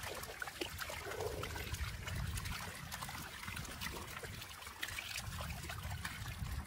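Water trickling and sloshing, with scattered small clicks and splashes.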